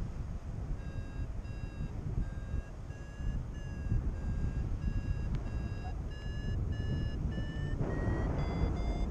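Paragliding variometer beeping a climb tone: a regular series of short beeps whose pitch slowly rises and steps higher near the end, the sign of the glider climbing faster in a thermal. Wind rumbles on the microphone throughout, with a louder rush of wind near the end.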